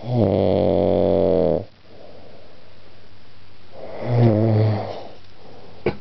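A man snoring loudly in his sleep: a long snore at the start, a shorter one about four seconds in, then a short click near the end.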